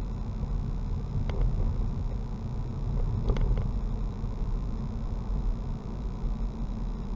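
Car driving along a narrow lane, heard from inside the cabin: a steady low rumble of engine and road noise, with a few light clicks about a second in and again around three seconds in.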